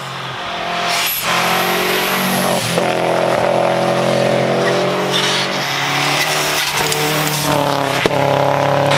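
Subaru Impreza rally car's flat-four engine driving hard up a gravel road and past, its pitch climbing and dropping back several times through gear changes, with tyres crunching on the dirt. A single sharp pop sounds near the end.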